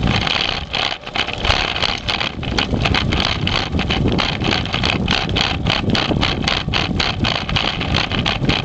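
Rattling, buzzing vibration of a handlebar-mounted camera, shaken through the mount as the dog scooter rolls along a concrete sidewalk. Rapid irregular clicks run through it.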